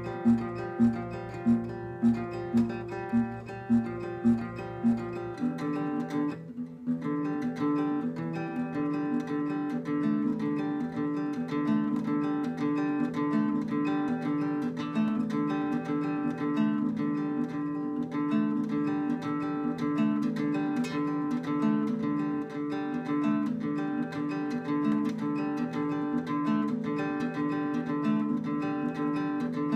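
Acoustic guitar fingerpicked solo: first a single note plucked over and over, about twice a second, then a brief pause about six seconds in, then a steady rippling pattern of picked notes.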